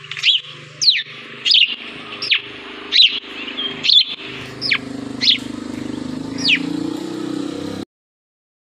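Blue-headed parrot calling: a series of about nine sharp, high calls, each sweeping quickly down in pitch, coming every half-second to second over a steady low rumble. The sound cuts off abruptly near the end.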